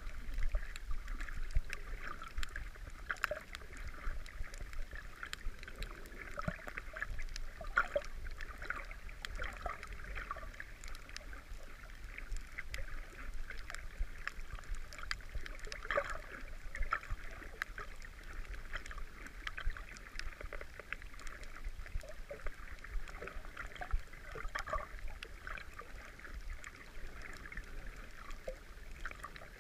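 Muffled underwater sound picked up through a GoPro's waterproof housing: a continuous crackle of many small irregular clicks over a low water rumble.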